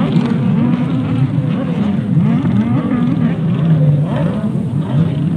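Racing jet ski engines, several at once, running hard with their pitch rising and falling over one another as the riders throttle and turn.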